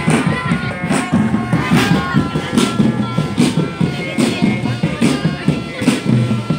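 School drum band music: a steady marching beat with a sharp percussion stroke about every 0.8 seconds under a melody of sustained tones.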